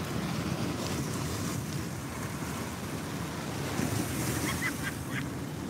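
Small waves breaking and splashing against seawall rocks, with wind buffeting the microphone. The wash swells louder about half a second in and again about four seconds in.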